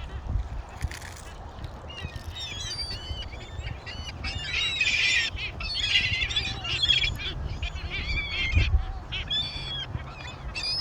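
A large flock of birds calling over one another, many short overlapping calls that grow denser from about two seconds in, with a low rumble underneath.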